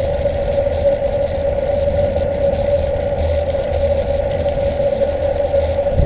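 Mountain bike rolling steadily along tarmac: a constant hum from the tyres, with low wind rumble on the microphone and light rattling from the handlebar mount.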